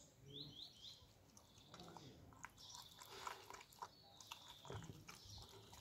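A dog eating porridge from a metal bucket: faint chewing with soft clicks, busiest through the middle.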